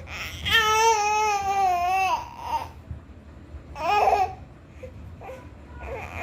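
Baby vocalizing: one long, wavering, drawn-out high note of about a second and a half, slightly falling in pitch, then a shorter call near four seconds and a few small sounds near the end.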